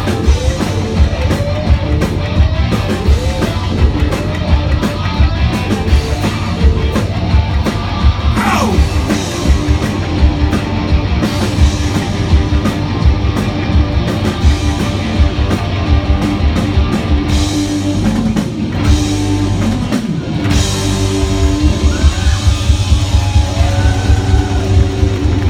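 Live rock band playing loud, with a pounding drum beat, guitars and sung vocals. There is a quick break in the beat about twenty seconds in.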